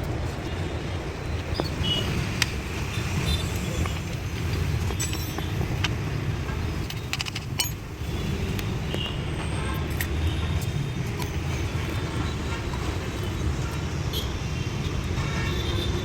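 Steady low rumble of motor traffic, with scattered light metallic clicks and taps.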